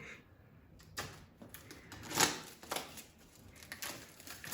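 Faint rustling and light clicks of a phone's cardboard box and its packaging being handled and opened by hand, with one louder rustle about two seconds in.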